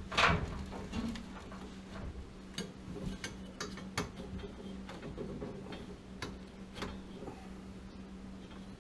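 Scattered light clicks and knocks at an irregular pace, with a sharper knock right at the start, over a steady low hum.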